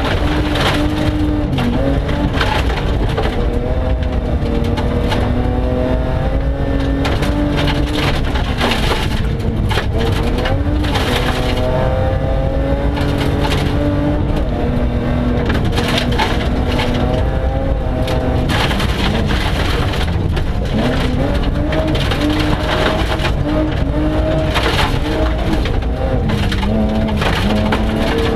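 BMW 325 Group H rally car's engine heard from inside the cabin at stage pace, its pitch climbing and dropping back again and again through gear changes. Gravel clatters against the underbody throughout.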